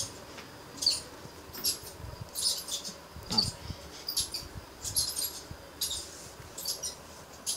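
Short, high-pitched chirps repeating about once or twice a second, with a fainter low scrape a little past the middle.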